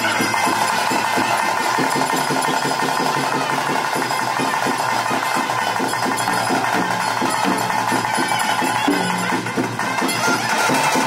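Fast ritual drumming on barrel drums, about four beats a second, with a high wind instrument holding long steady notes over it.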